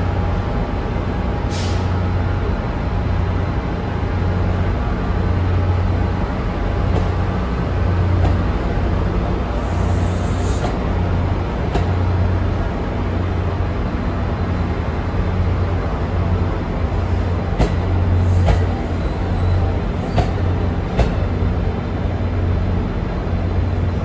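NJ Transit bilevel passenger coaches rolling slowly past along the platform track, with a steady low drone and a few sharp clicks from the wheels in the last third.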